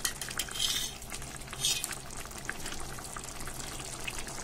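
Thick tamarind dried-fish curry simmering and bubbling in a steel pot, with a ladle stirring and scraping through it a couple of times in the first two seconds.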